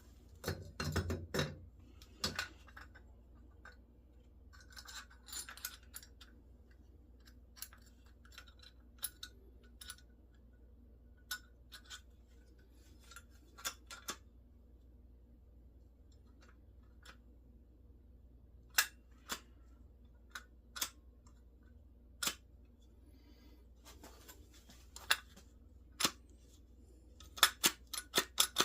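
Scattered light clicks and taps of small metal parts being handled, with a short stretch of scraping about five seconds in and a quick run of clicks near the end.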